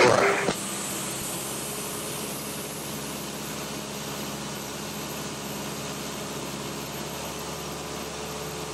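Cessna 172's four-cylinder piston engine and propeller running steadily in cruise, heard inside the cabin as an even drone with a low hum.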